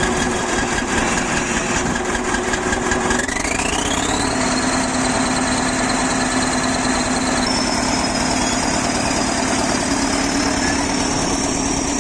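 Heavy earthmoving machine's engine running steadily under load, with a whine that rises in pitch about three seconds in and then holds at the higher pitch.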